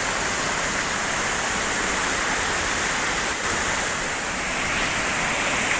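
Steady rush of a waterfall cascading down a rock face into a pool.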